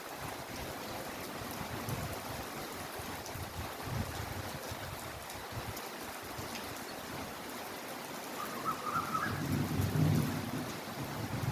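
Heavy, steady rainfall, a dense even patter. A low rumble swells up near the end.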